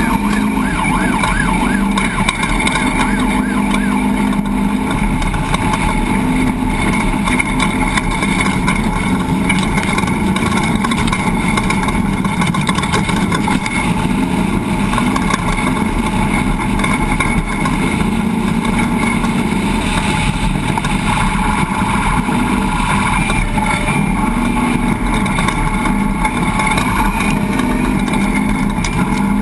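An off-road race truck's engine running under load at speed, its pitch drifting slightly with the throttle, over a steady rumble of road and wind noise.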